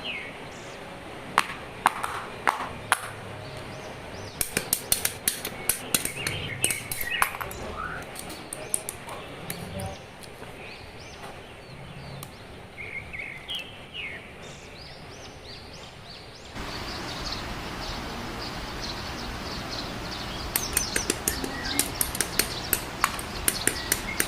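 Clusters of sharp clicks and taps from plastic model kit parts and runners being handled, with birds chirping in the background. The clicks come in bursts, heaviest a few seconds in and again near the end.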